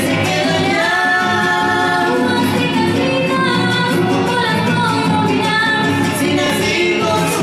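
Live string trio in the Huastec style: violin, a large strummed huapanguera and a small jarana, with a woman and a man singing long, sliding notes over the strumming.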